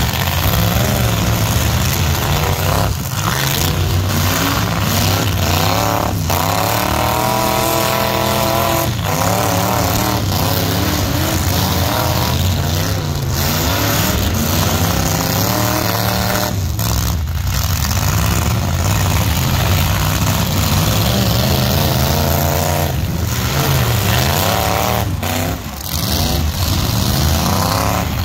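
Engines of several outlaw demolition-derby mini trucks running loud and revving, their pitch climbing and falling as the trucks accelerate and slow.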